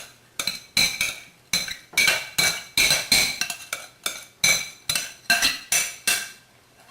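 A utensil clinking repeatedly against a mixing bowl while stirring shredded potato and onion into a wet cornstarch and curry powder coating, about three sharp ringing strikes a second, stopping shortly before the end.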